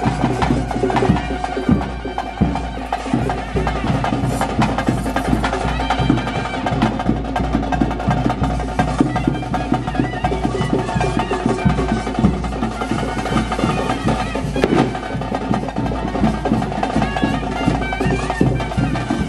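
Traditional bhuta kola ritual music: drums and sharp wooden-sounding clicks beating fast and without a break, over a steady held tone.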